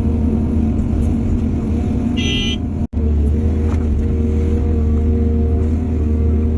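Heavy diesel machinery, excavator and dump truck engines, running steadily with a deep drone. About two seconds in, a short high-pitched toot sounds, and just after it the sound drops out for an instant.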